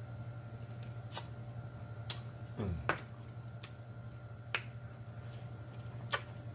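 Close-miked eating sounds from chicken wings being chewed and picked at: sharp wet mouth smacks and clicks about once a second, over a steady low hum. A brief low hum of the voice comes about two and a half seconds in.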